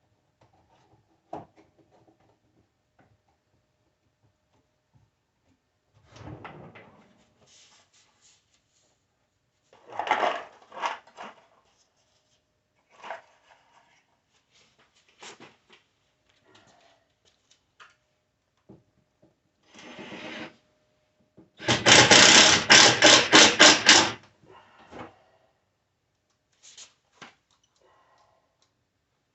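Woodworking handling sounds: scattered knocks and rubbing of wood, then a loud run of rapid pulses for about two and a half seconds, about three quarters of the way in, from a power tool.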